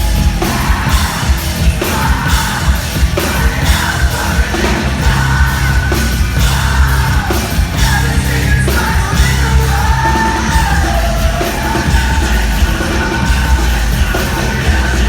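Live rock band playing loud, with screamed and sung vocals over distorted guitars and pounding drums, heard as a crowd recording from the audience.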